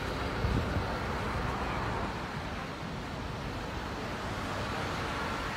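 Wind buffeting a phone microphone over a steady background rumble of vehicles, with a couple of small bumps about half a second in.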